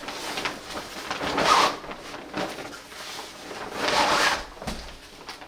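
Fabric carrying bag rustling and scraping as a folded camping cot is slid out of it, with two louder swishes about one and a half and four seconds in.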